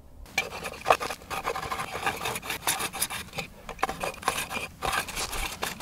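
Hand plane scraping in quick, irregular strokes across the freshly cut end grain of an ash trunk, shaving it smooth so the growth rings show.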